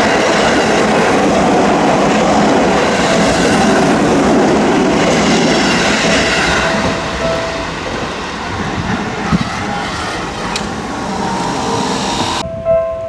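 Seibu Ikebukuro Line train passing over a level crossing, its wheels and cars rattling loudly and then fading after about eight seconds; the sound cuts off suddenly near the end.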